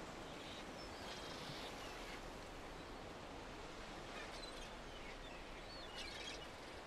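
Faint seaside ambience: a steady wash of surf and wind with a few faint seagull calls.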